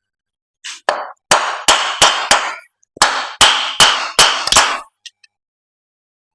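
Hammer blows knocking an engine's cylinder sleeve loose: two runs of about five sharp, ringing knocks, roughly three a second, with a short pause between.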